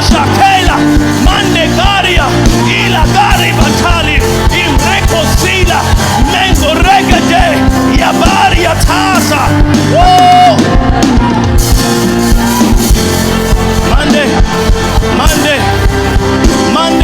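Loud live worship music with a steady beat and sustained instrumental notes, with voices singing and calling over it.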